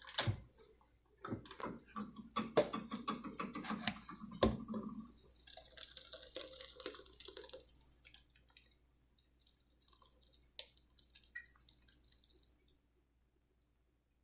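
Blended ginger, garlic and onion tea being strained: a few knocks and clinks of the utensils, then liquid pouring through the strainer and dripping, dying away to scattered faint drips.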